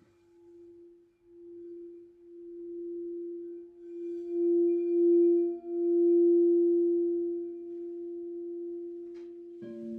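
Crystal singing bowls ringing in long pure tones: one bowl's note swells up gradually and wavers in loudness, a second, lower bowl joins about four seconds in, and a third, lower note enters sharply just before the end.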